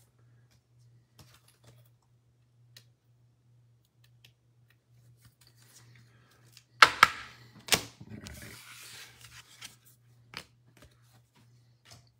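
Trading-card pack and wrapper handling: scattered faint clicks, then two sharp taps about seven seconds in, followed by a couple of seconds of foil wrapper crinkling.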